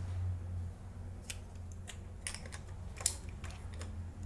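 Light metal clicks and taps as the swing bearing and gearbox of a metal RC excavator are handled and seated on its chassis: a quick run of them through the second half, the loudest about three seconds in. A low steady hum runs underneath.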